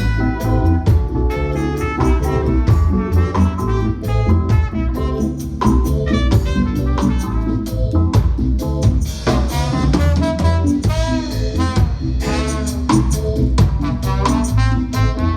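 Live band playing an instrumental passage: a horn section carries the melody over drum kit and a heavy bass line.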